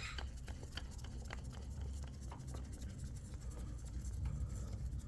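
Faint handling noise with a few light clicks as a chain-tension gauge is hooked onto a motorcycle drive chain and wound up against the chain to feel its resistance.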